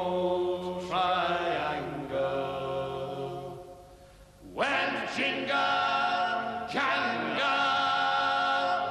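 Unaccompanied male voices singing a folk song in harmony, with long held notes in phrases and a short break about four seconds in.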